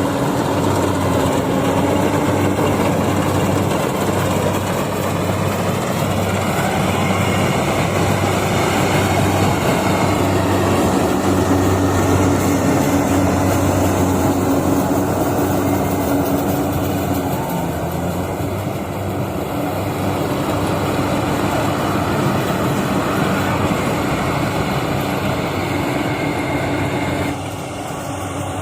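Yanmar AW70V combine harvester running steadily under load, a constant diesel engine hum with machinery clatter over it. The sound drops slightly just before the end.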